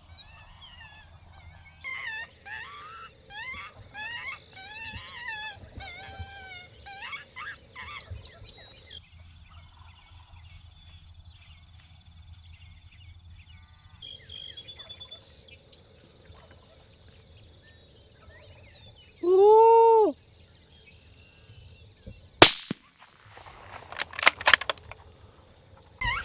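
Birds chirping, then one loud call that rises and falls in pitch, then a single very loud rifle shot from a coyote hunter's rifle about three seconds later, followed by a few weaker sharp cracks.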